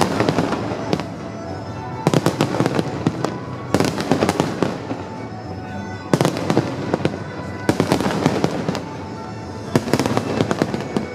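Fireworks display: shells bursting in rapid clusters of bangs and crackles, a new volley about every two seconds.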